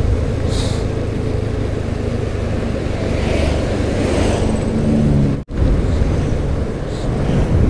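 Motorcycle on the move: wind rushing over the helmet microphone and the engine running. The sound cuts out for an instant about five and a half seconds in.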